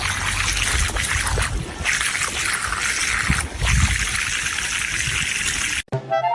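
Steady rush of running water that cuts off abruptly near the end.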